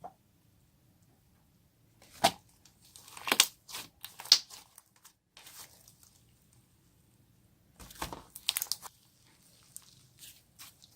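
Homemade slime being worked by hand, crackling and popping in short bursts: one cluster of pops from about two seconds in and another near the end.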